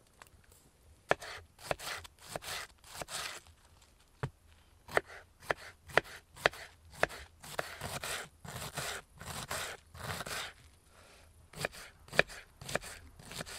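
Kitchen knife shredding a head of white cabbage on a wooden cutting board: crisp crunching slices, each marked by a sharp knock of the blade on the board, in irregular runs with short pauses.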